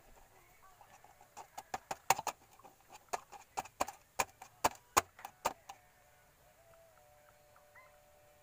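Plastic engine-oil bottle ticking and popping as oil glugs out of it into the engine's filler: a run of sharp irregular clicks, about two or three a second, for around four seconds, then quieter.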